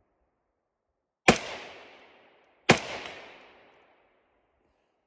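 Two single shots from an AR-style rifle firing steel-case ammunition, about a second and a half apart, each followed by an echo that dies away over about a second.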